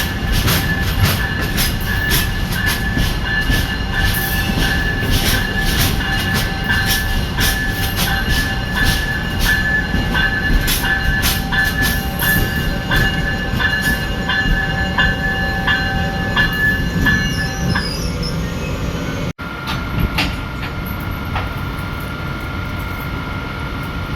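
Train rolling slowly over station track, wheels squealing in a steady high tone and clicking rapidly over rail joints and switches. The squeal stops about eighteen seconds in; after a brief break a lower, steady tone carries on.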